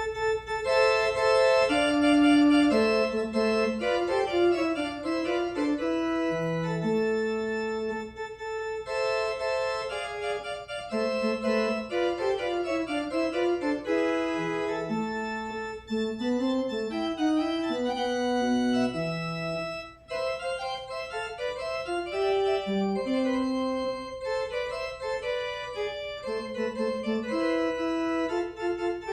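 Organ playing a postlude: sustained chords over a moving bass line.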